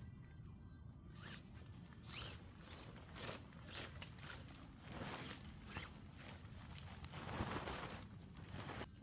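A zipper pulled in a series of short strokes, with one longer pull near the end.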